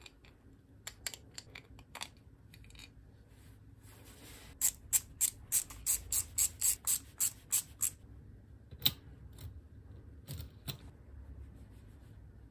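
Hand assembly of a 3D-printed plastic mechanism. There are light handling clicks, then a run of about a dozen sharp, even clicks, about four a second, while a screw is driven in with a screwdriver. A single loud click follows, then a few softer clicks as small parts are fitted.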